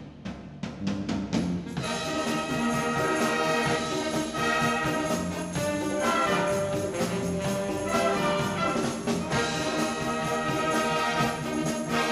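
Amateur wind band playing live. A bare, evenly spaced percussion beat carries the first two seconds, then the full band comes in, brass and woodwinds holding chords over the beat.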